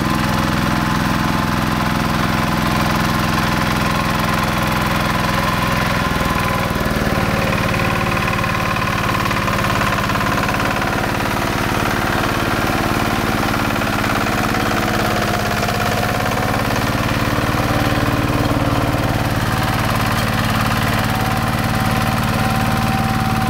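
Two-wheel hand tractor's single-cylinder diesel engine running steadily under load as it churns through a flooded rice paddy, its note shifting slightly about six seconds in.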